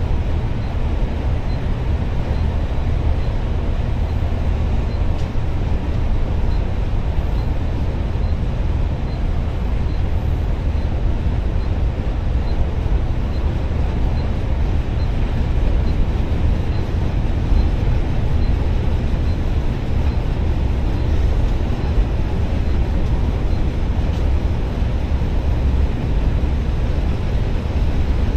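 Passenger coach driving at speed: a steady, deep engine and road rumble. A faint high tick repeats about twice a second.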